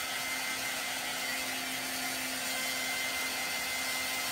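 Small handheld dryer running steadily, its airflow noise carrying a faint constant hum, blowing air to dry chalk paste on a silkscreen transfer.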